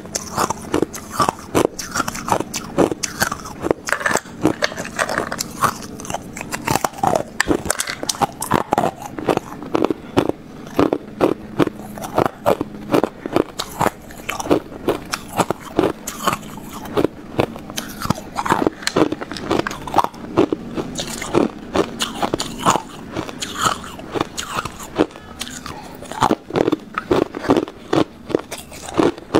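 Thin clear ice being bitten and chewed close to a clip-on microphone: a steady run of sharp crunches and cracks, several a second.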